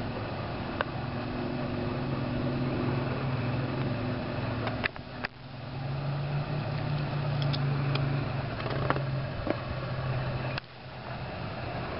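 A motor engine running steadily with a low hum that shifts up in pitch about halfway through, with a few faint clicks.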